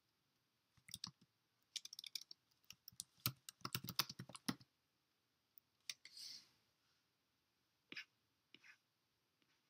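Faint quick typing on a keyboard for a few seconds, then a short hiss and two single clicks near the end.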